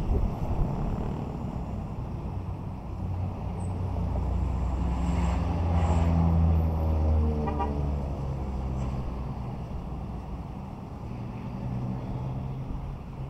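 A road vehicle passing close by: its engine rumble swells to a peak about six seconds in, then fades away with a falling pitch.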